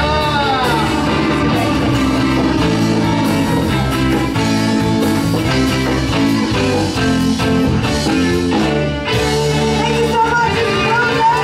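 Live rock band with electric guitar and drums playing, with a man singing into a microphone at the start and vocals coming back in near the end.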